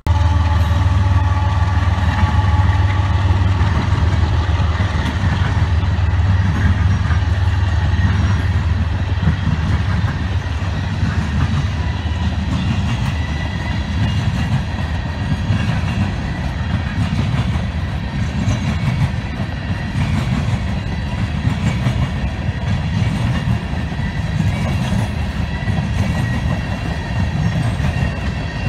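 Coal train passing close by: a deep drone that eases after the first ten seconds or so, under the steady rumble and clatter of the hopper cars' wheels on the rails.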